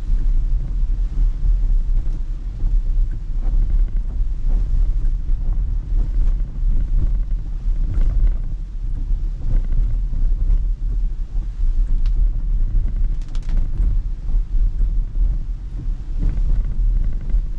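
Inside a Tesla's cabin while driving through a heavy rainstorm: a deep, steady rumble of wet-road tyre noise and rain on the car's body and glass. There is no engine note, as the car is electric.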